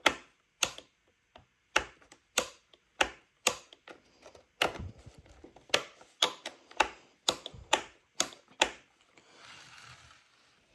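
A series of irregular sharp clicks and knocks, about two a second, with a soft rustle near the end.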